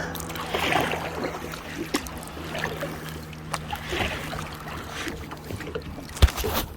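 Kayak paddle strokes dipping and splashing in calm river water every second or two, with a sharp knock near the end.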